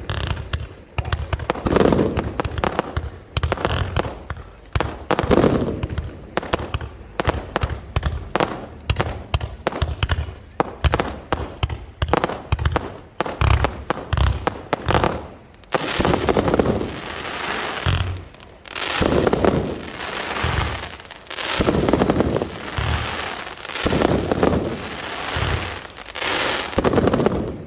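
Fireworks display: a fast series of loud shell bursts and bangs. About halfway through it thickens into a dense, near-continuous barrage.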